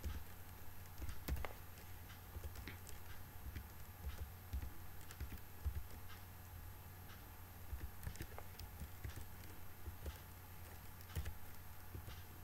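Keystrokes on a computer keyboard as an activation code is typed in one character at a time: irregular, unhurried clicks with uneven gaps, over a low steady hum.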